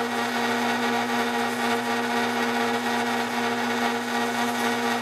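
Drill press running steadily with a constant hum, spinning a wooden awl handle while 60-grit sandpaper is held against it, adding an even sanding hiss.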